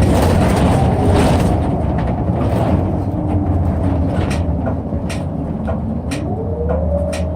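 Interior of a city bus under way: a steady, heavy low engine and road rumble, with a whine that rises and then falls in pitch in the second half as the drivetrain takes up speed. Sharp clicks or rattles about twice a second join from about halfway through.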